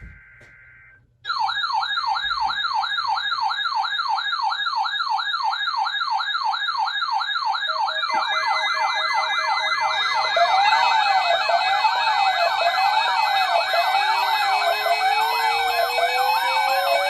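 A short burst of steady EAS data tones ends, then electronic sirens start about a second in with a fast warble. More siren tones join partway through, including a slower up-and-down yelp and, near the end, a rising wail.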